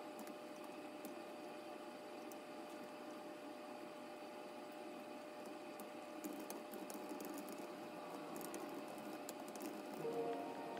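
Steady low room hum, with faint light clicks and ticks from about six seconds in. Soft music begins near the end.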